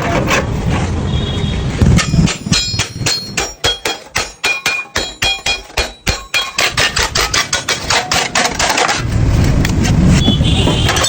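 Rapid hammer blows on the sheet metal of a motorcycle fuel tank, about five ringing strikes a second, as dents are beaten out. A steady low rumble comes before and after the hammering.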